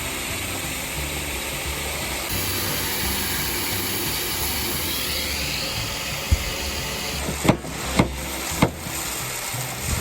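An engine runs steadily while seed is being loaded. Several sharp knocks come in the last few seconds.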